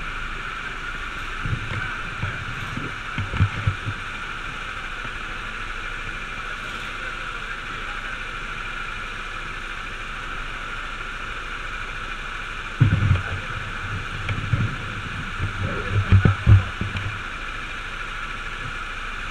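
Go-kart engines idling steadily in a queue. Low rumbling thuds hit the microphone in two clusters, a couple of seconds in and again from about thirteen to seventeen seconds.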